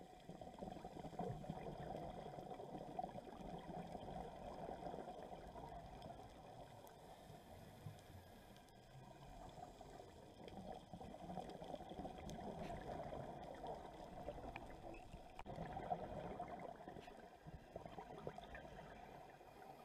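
Muffled underwater bubbling and gurgling from scuba divers' exhaled regulator bubbles, picked up by a camera in its underwater housing. It swells and eases over several seconds, dipping for a while near the middle.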